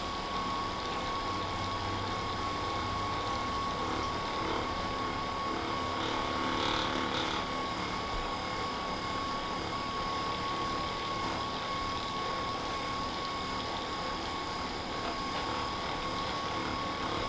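Handheld electric massager running steadily on the back muscles, a motor buzz with a high steady whine that swells slightly about six or seven seconds in.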